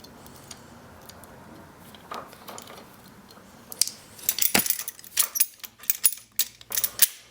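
Steel winch hook and its metal fittings clinking and rattling as they are handled and fitted onto the end of the winch cable: a quiet stretch, then a quick run of sharp metallic clinks over the second half.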